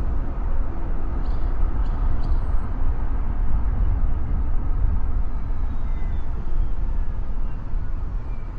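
Car driving along a road: a steady low rumble of tyre and engine noise. A few faint ticks early on and a faint falling whine in the middle sit under it.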